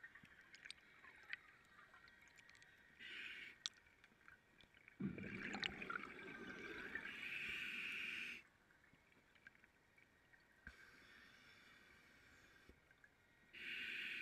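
Scuba regulator breathing heard faintly underwater: a few separate breaths, each a hiss or a gurgle of exhaled bubbles, the longest lasting about three seconds about five seconds in.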